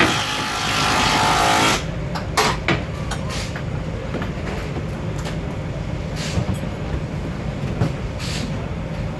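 Loud hissing noise that cuts off sharply about two seconds in, then tools knocking and clinking under a Ford Fiesta R5 rally car during a gearbox change, over a steady low hum.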